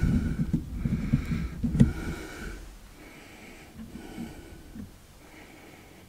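Close, wheezy breathing at the microphone, about one breath a second. Under it, a low rumble of the camera being handled during the first couple of seconds, which then fades.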